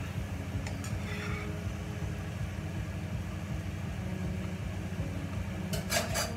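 A steady low hum, with light scrapes and clinks of a spatula against a frying pan as a fried egg is slid onto a plate, and a short clatter of cookware near the end.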